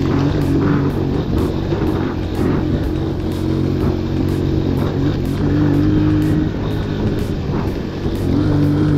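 Motorcycle engine running at steady low revs, its pitch rising and dipping slightly as the bike rolls along.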